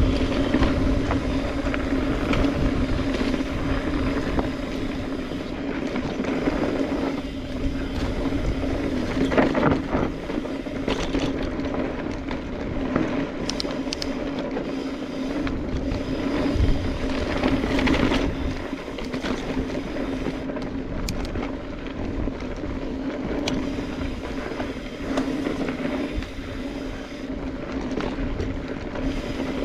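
Specialized Stumpjumper EVO mountain bike riding down a dirt trail: knobby tyres rolling over dirt and rock with a steady hum, and scattered knocks and rattles from the bike over bumps.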